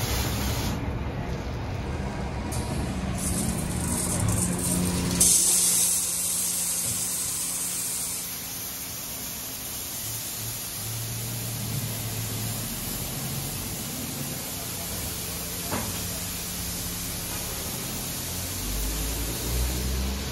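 Istobal M'Start rollover car wash running its brush wash over a car: rotating brushes and hissing water spray over a steady motor hum. The spray hiss grows louder for a few seconds about five seconds in.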